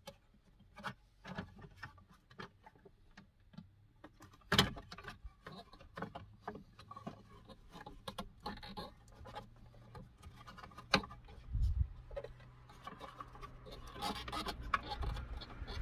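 Hand work on a steering column: scattered clicks and taps of screws, a screwdriver and plastic trim covers being handled, with a sharper knock about a third of the way in and another about two-thirds in. A low steady hum comes in about halfway, and handling rustles pick up near the end.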